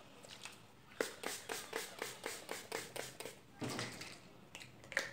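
Cucumber-and-lemon toner being applied to the face from a small hand-held bottle: a quick, even run of light taps, about five a second, then a few softer scattered sounds near the end.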